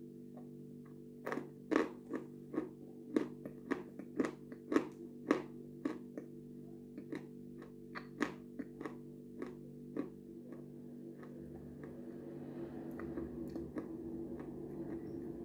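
Close-up eating sounds: sharp wet mouth clicks and lip smacks, about two a second, as soft white food is licked and chewed. The clicks thin out around ten seconds in and give way to a softer, continuous mouth noise. A steady low hum runs underneath.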